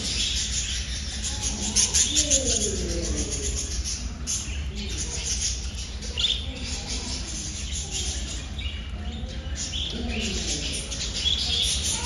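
Many small birds chirping and twittering at once, a dense chatter of short high calls, over a steady low hum.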